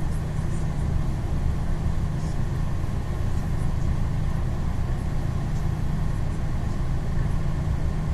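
Golden Dragon city bus engine idling, a steady low drone heard from inside the cabin while the bus stands still.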